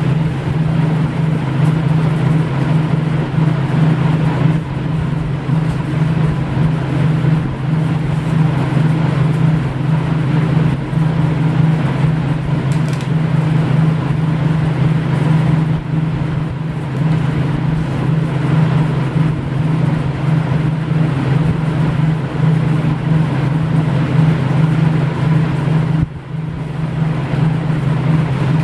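A loud, steady low hum over a constant rushing noise, like a running motor or fan, with a brief drop in level near the end.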